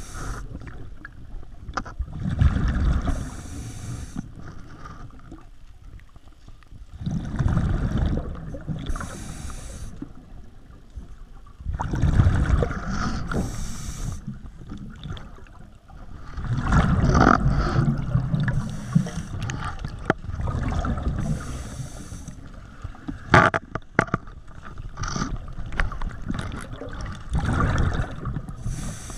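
Scuba diver breathing through a regulator underwater: exhaled bubbles rumble and gurgle past the microphone, each breath followed by a short hiss of inhalation, repeating about every four to five seconds. There is one sharp click about two-thirds of the way through.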